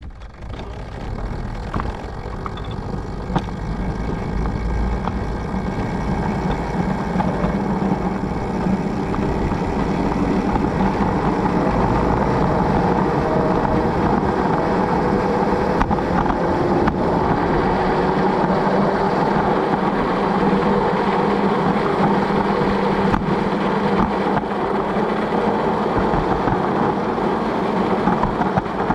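Ride-on backyard scale train running along its track: a steady mechanical drone with wheel-on-rail noise, growing louder over the first several seconds as it gets under way and then holding, with a few faint clicks.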